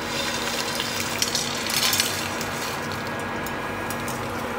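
Roasted grated coconut, dried chillies and garlic sliding and being scraped out of a nonstick frying pan onto a ceramic plate: light scraping with scattered clinks of the pan against the plate, over a steady low hum.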